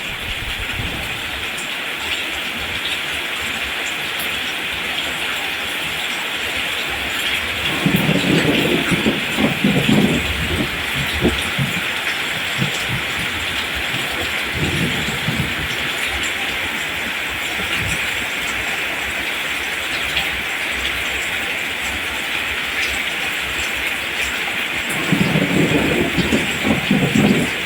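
Steady heavy rain falling on rice plants, a constant hiss, with low rumbles of thunder swelling up about eight seconds in and again near the end.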